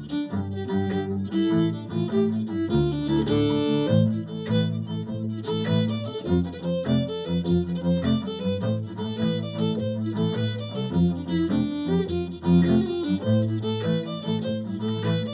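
Fiddle playing a jig melody in quick, changing notes, with a lower bass part sounding beneath it, below the fiddle's own range.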